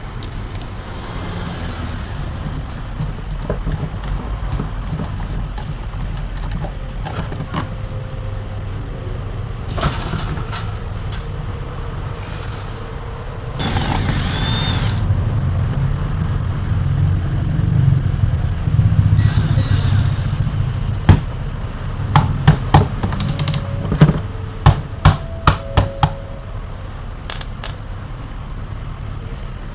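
A steady low rumble of background traffic, with a run of sharp clicks and knocks about two-thirds of the way in from a table fan being handled and taken apart for repair.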